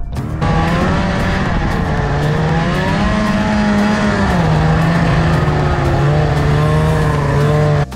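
Snowmobile engine running under way. Its pitch rises about three seconds in, drops back and then holds steady, and the sound cuts off abruptly just before the end.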